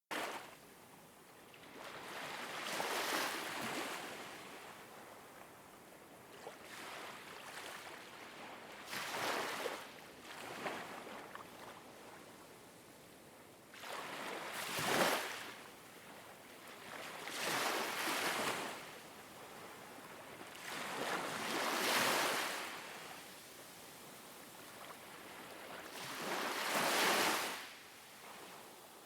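Ocean waves washing in, a hiss that swells and fades about seven times, every four to five seconds.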